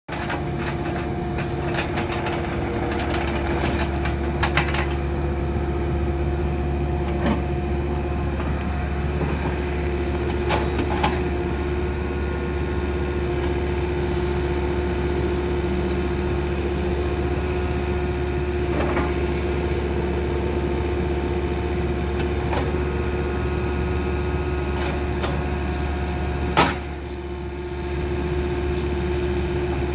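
2015 Takeuchi TB260 mini excavator's diesel engine running steadily with a steady whine while the boom, arm and bucket are worked. Several sharp clanks come through, the loudest near the end, followed by a brief dip in the engine sound.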